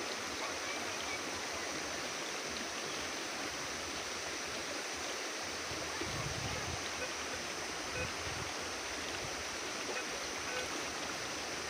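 Steady rushing of a waterfall and stream, with a couple of dull low bumps about six and eight seconds in.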